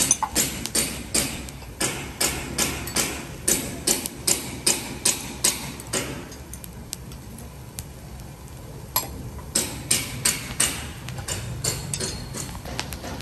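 Rhythmic sharp knocks, about two to three a second. They stop about six seconds in and come back briefly around nine to eleven seconds.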